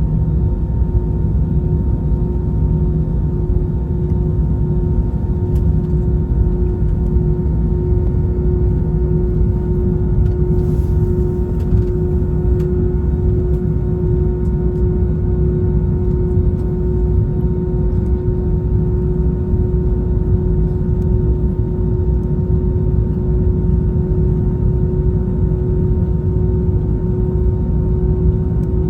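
Cabin noise inside an Airbus A321 airliner: a steady low rumble with a constant hum from the running engines and air systems, holding at one even level without rising.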